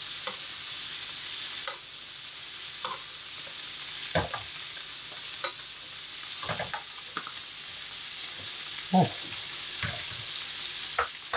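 Black bream fillets sizzling in hot butter in a frying pan while they are basted with a spoon, with scattered light knocks and scrapes of the spoon against the pan, the largest about nine seconds in.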